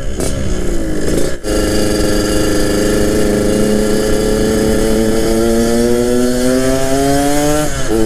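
Yamaha RX-King's two-stroke single-cylinder engine breathing through a homemade full-stainless racing exhaust, under way. The note falls and breaks off for a moment about a second and a half in. It then climbs steadily under acceleration for several seconds before dropping away near the end.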